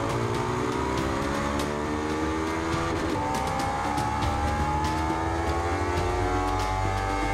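Motorcycle engine accelerating under load, its pitch climbing steadily, dropping sharply about three seconds in at an upshift, then climbing again.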